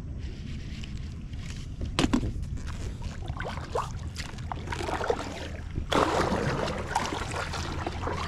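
Water splashing and sloshing against an inflatable kayak, over a steady low rumble, with a sharp knock about two seconds in; the splashing grows louder near the end.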